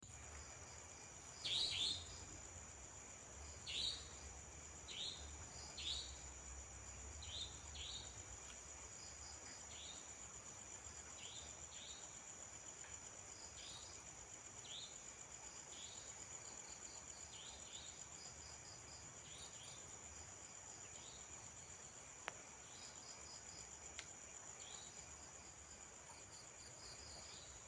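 Night-time insect chorus: a steady high-pitched trill of crickets runs underneath. Over it comes a series of short, falling chirps about every one to two seconds, loudest in the first few seconds and fainter later.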